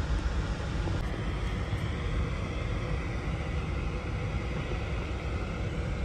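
Steady low rumble with a light hiss from a Dodge Journey's 2.4-litre four-cylinder engine idling, heard from outside the car.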